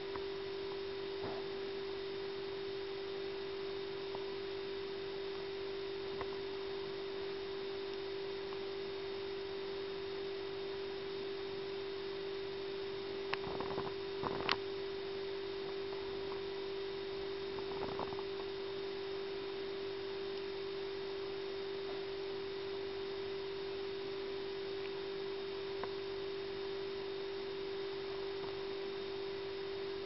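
A steady, unchanging hum on a single tone, with a few faint taps about halfway through and once more a few seconds later.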